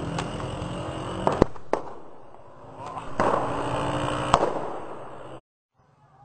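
Sharp explosive bangs of street fireworks going off, several in the first two seconds, the loudest about a second and a half in and another past four seconds, over a steady rushing din. The sound drops out completely a little after five seconds.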